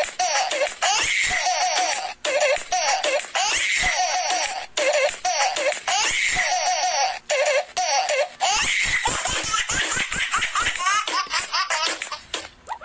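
A looped laughter sound effect, the same burst of giggling repeating about every two and a half seconds. Near the end, a run of rising pitched glides begins.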